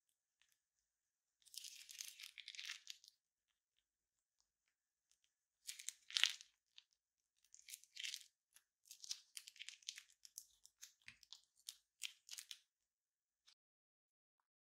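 Crinkling and crackling of a plastic piping bag being squeezed as clear slime is piped out into a glass bowl. It comes in irregular crisp bursts: one about two seconds in, a louder one around six seconds, then a run of short crackles from about eight to twelve seconds.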